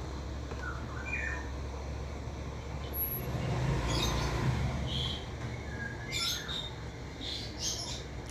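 Scattered short, high bird chirps, with a low rumble that swells and fades around the middle.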